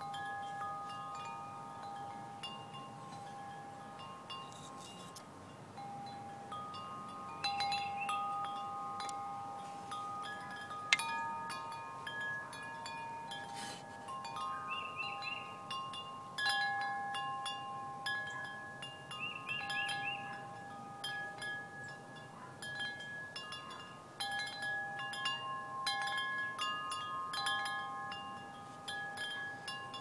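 Large wind chime with long metal tubes, struck at irregular moments by its wooden centre striker. Each strike sets several long-ringing tones going, which overlap and sustain for seconds.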